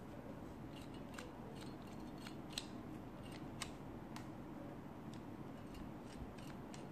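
Plastic action-figure dinosaur being worked by hand: its moving parts give a dozen or so small, scattered clicks, the two sharpest about two and a half and three and a half seconds in.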